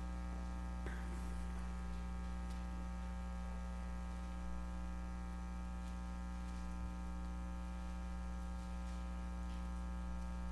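Steady electrical mains hum, a low buzz with a stack of steady overtones, with a few faint ticks scattered through it.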